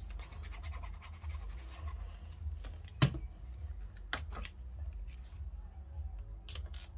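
Paper and tools being handled on a craft mat: a squeeze bottle of liquid glue in use, then paper being laid and pressed down. About three seconds in there is a sharp knock, and a few lighter clicks follow. A low steady hum runs underneath.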